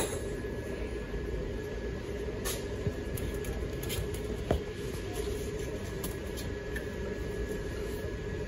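Steady hum of a large store's background, with a constant low tone, and a few light knocks and rustles as boxed ornaments on the shelf are handled.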